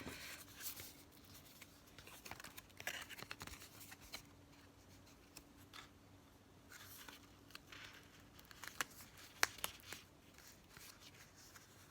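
Faint rustling, scraping and small clicks of paper and card being handled, scattered irregularly.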